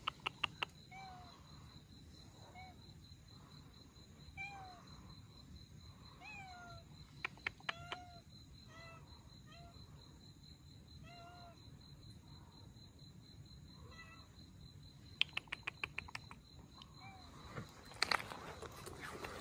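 Grey tabby kitten meowing repeatedly, short high calls about every one to two seconds. A few quick runs of sharp clicks come and go, the loudest near the end.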